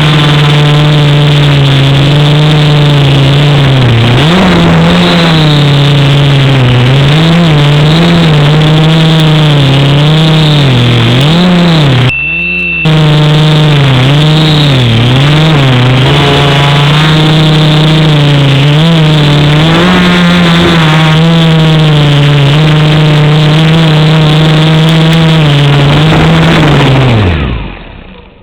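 Quadcopter's electric motors and propellers whining, the pitch rising and falling over and over with throttle changes. The sound drops out for about half a second near 12 seconds in, leaving a steady high tone, and near the end the motors spin down with a falling pitch and stop.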